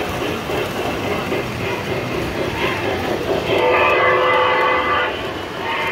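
O-gauge model train running on three-rail track with a rhythmic clatter of wheels, then its whistle sounding a steady chord for about a second and a half, starting about three and a half seconds in.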